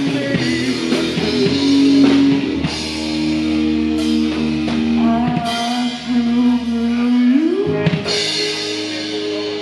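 Live three-piece rock band playing with no vocals: a drum kit with cymbal crashes, electric guitar and bass holding chords, and a held note sliding up near the end. This is the song's closing, with the band ringing out its final chords.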